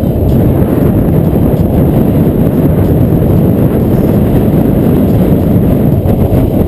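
Loud, steady wind rushing over the microphone of a bicycle-mounted camera descending at speed, with no let-up.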